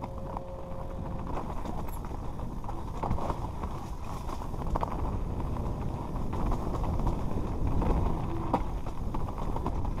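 Mountain bike descending rocky singletrack: tyres crunching over loose stones and the bike rattling and clattering over the bumps, with a steady wind rumble on the helmet camera's microphone. It gets gradually louder as the ride goes on.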